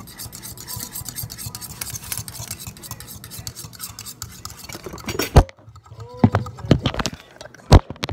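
Eggs being beaten in a stainless steel mixing bowl: rapid, steady metal-on-metal scraping and clicking of the utensil against the bowl. This stops about five seconds in, and several loud knocks and clatters follow as the phone filming is knocked over and falls.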